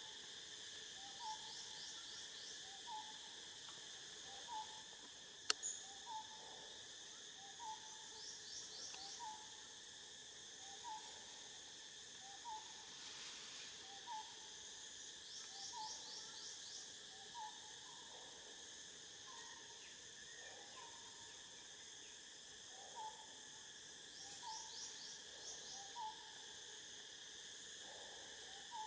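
Forest ambience: a steady high insect drone, with a bird's short hoot-like note repeated about every second and a half, a few brief rapid trills, and one sharp click about five and a half seconds in.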